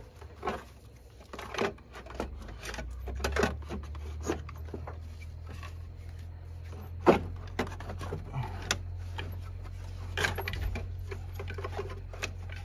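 Car alternator being worked loose and pulled out of the engine bay by hand: irregular metal clunks, knocks and scrapes, with one louder knock about seven seconds in, over a steady low hum.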